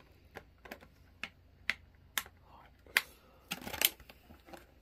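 A dozen or so sharp clicks and taps of hard objects being handled, at uneven intervals, with a quick cluster of louder clicks about three and a half seconds in.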